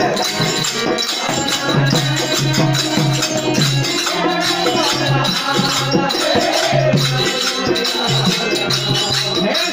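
Devotional bhajan kirtan music played by a group, with steady rhythmic hand clapping and jingling hand percussion keeping the beat.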